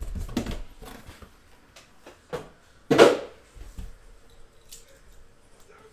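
A metal card briefcase being handled and turned on a mat: several knocks and scrapes, the loudest about three seconds in.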